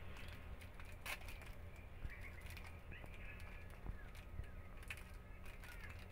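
Faint crinkling and scattered clicks of plastic Yupi candy wrappers being twisted open by hand, over a steady low hum.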